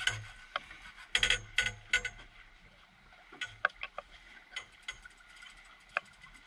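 Spinning fishing reel clicking in irregular bursts as a hooked fish is reeled in, densest about a second in and again around the middle.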